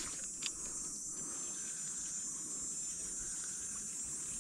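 Steady high-pitched insect chorus. A single faint click comes about half a second in.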